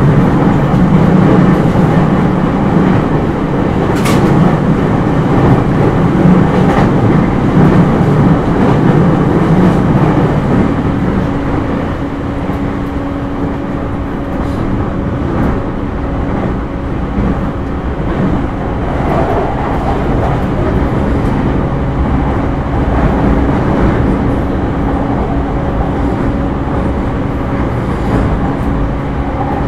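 Running noise inside a JR East E231-0 series electric commuter train car: a steady rumble of wheels on rail with a steady electric hum. There is a sharp click about four seconds in, and the sound eases slightly in the second half.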